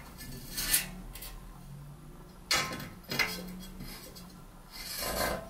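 A few light knocks and clinks of a glass shelf against its metal holders as it is handled into place, with a softer, duller knock near the end.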